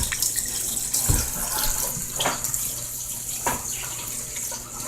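Tap water running steadily into a sink as a small dog is rinsed during its bath, with a few brief knocks.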